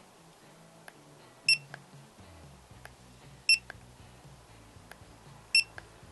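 Cigman CT50 digital laser tape measure beeping three times, about two seconds apart, as its units button is held down and it steps through measurement units, with faint clicks between the beeps.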